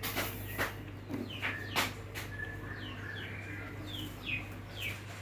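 Small birds chirping over and over in short, quickly falling notes, mixed with several sharp clicks and a steady low hum.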